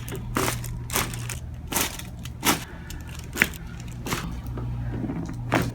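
Joint cracks and pops during chiropractic adjustments: about seven short, separate pops spread a second or so apart, over a steady low hum.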